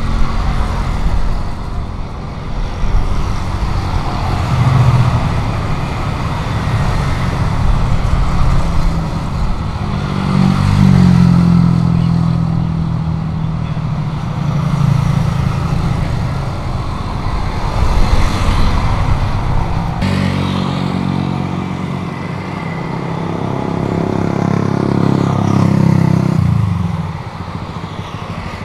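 Loud engine noise that swells and fades in waves, with a deep hum that changes pitch. It shifts abruptly about twenty seconds in and drops away shortly before the end.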